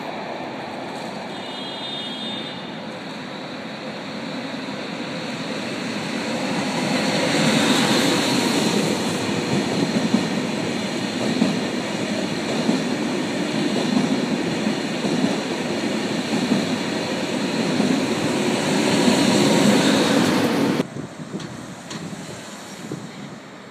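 Double-deck TGV train running past close below at speed: a steady rush and rumble of wheels and air that grows louder about six seconds in and cuts off abruptly near the end.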